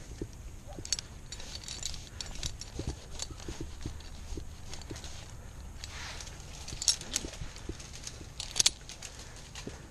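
Irregular light knocks and clicks, with two sharp, louder clacks in the second half.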